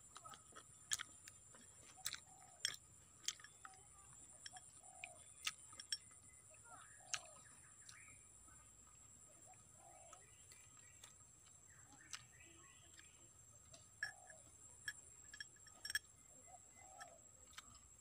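Faint outdoor quiet with short bird calls, soft coos and chirps, now and then, over a faint steady high tone. Scattered sharp little clicks come at irregular intervals.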